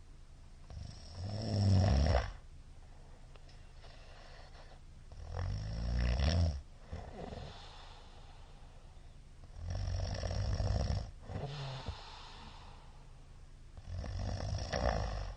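A middle-aged man snoring loudly in his sleep: four snores, one every four seconds or so, with a low room hiss between them.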